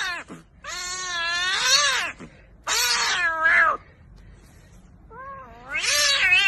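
A cat yowling in a run of long, drawn-out meows, about four of them, each wavering in pitch and lasting a second or more, with short gaps between.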